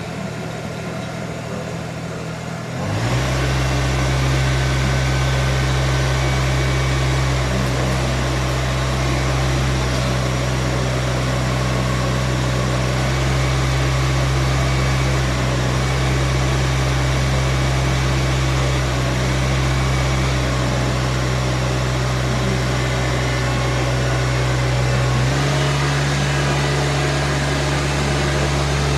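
New Holland TZ18DA compact tractor's diesel engine running. It picks up speed about three seconds in and holds a steady, loud note while the tractor drives. Near the end the engine note changes as the throttle setting shifts.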